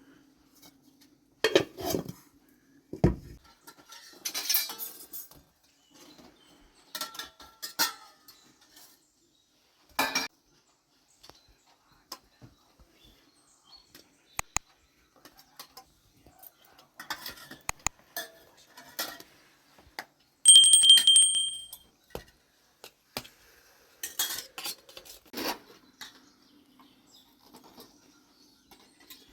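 Dishes and cutlery clinking and knocking in scattered handling, with one loud ringing clink about two-thirds of the way through.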